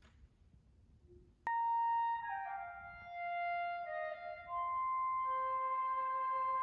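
Flute enters suddenly about a second and a half in with a held note, then plays a short run of falling notes and settles into another long held note.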